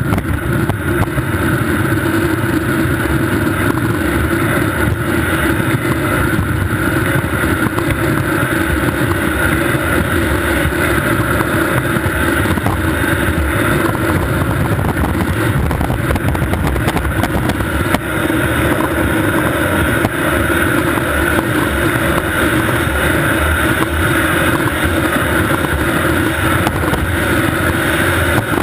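Skateboard wheels rolling fast on asphalt, a loud, steady rumble.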